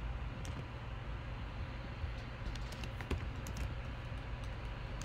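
Typing on a computer keyboard: a run of irregular keystroke clicks, over a low steady hum.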